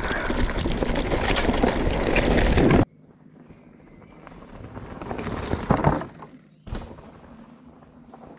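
Mountain bike rolling down a loose gravel and stone trail, tyres crunching over the stones with many small rattles and clicks. It cuts off suddenly about three seconds in, leaving much quieter outdoor background with a few faint sounds.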